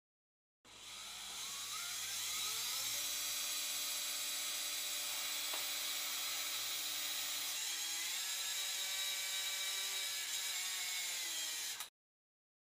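Surgical power tool driving a self-tapping locking head screw through the bone plate into a plastic bone model: a motor whine that rises in pitch as it spins up over the first couple of seconds, then runs steadily with small shifts in pitch. It cuts off abruptly near the end, with the screw not yet fully tightened.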